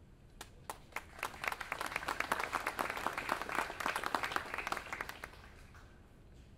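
A seated audience applauding. The clapping builds within the first second or two, holds, then dies away about five seconds in.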